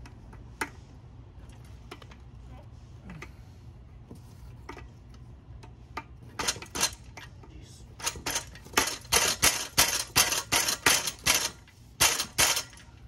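Sharp knocks on a tire changer's metal frame as an end cap is driven in by hand without a mallet: a few scattered clicks, then from about six seconds in a quick run of knocks at about three a second.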